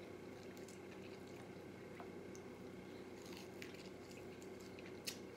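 Faint wet chewing and lip-smacking of a person eating, a few soft mouth clicks over a steady low room hum, with a sharper smack just after five seconds in.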